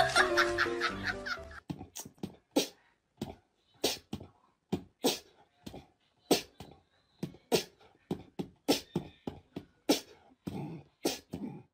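A small dog's short, breathy huffs, about one a second with quiet between, as it faces a toy frog. Over the first second and a half, a pop song is still playing; it stops about one and a half seconds in.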